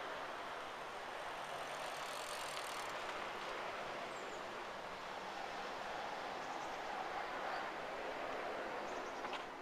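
Steady outdoor ambient noise: a continuous, even hiss with no single clear source, with a few faint short high sounds now and then.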